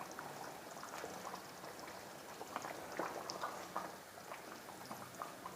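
Thick chicken curry boiling in an open pan, bubbling with soft, irregular small pops.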